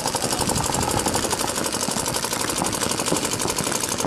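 Paintball markers firing in rapid, continuous strings, many shots a second without a pause.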